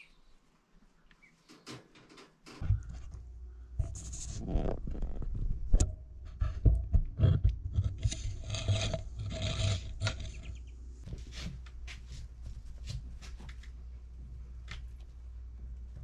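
Close rubbing and scraping noises with scattered clicks, loudest in the middle, as the camera is moved into a chick brooder against its wire and wood-shavings bedding. A steady low rumble starts about two and a half seconds in.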